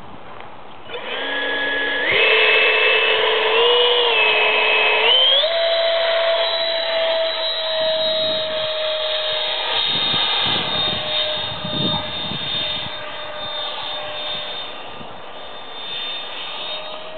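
Starmax 90 mm electric ducted fan on a model F-16 jet, a whine with rushing air. It spools up in steps to full throttle over the first few seconds, then holds a steady high whine that grows slowly fainter as the jet flies off.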